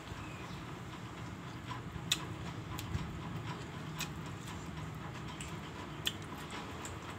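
A person eating by hand: chewing and mouth sounds, with a few sharp clicks and smacks a second or two apart, over a steady low hum.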